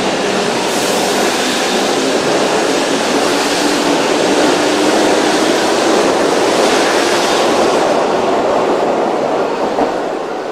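Keihan electric train running past the station platform. It is a steady rumbling rush that swells toward the middle and begins to fade near the end.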